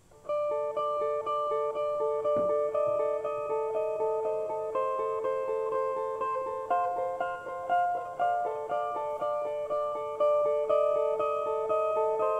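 Music: a plucked string instrument picking a repeating arpeggio, about four clear notes a second, starting just after the beginning.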